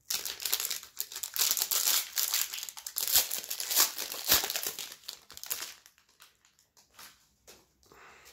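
Foil wrapper of an Upper Deck CHL Hockey trading-card pack crinkling loudly as it is torn open by hand and peeled off the stack of cards. The crinkling stops about six seconds in, leaving a few faint clicks of cards being handled.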